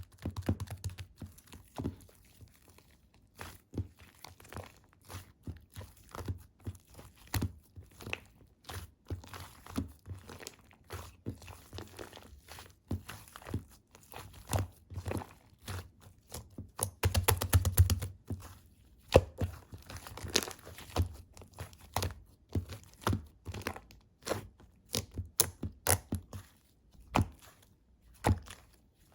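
Slime topped with shaving foam and foam balls being pressed and squished by hand: irregular crackling clicks and pops, with a dense run of crackles about 17 seconds in.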